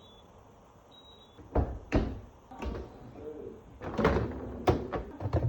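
A series of knocks and clunks, about six in a few seconds, of hard objects being handled. The loudest come about two seconds in and around four to five seconds in, with a light clatter between them.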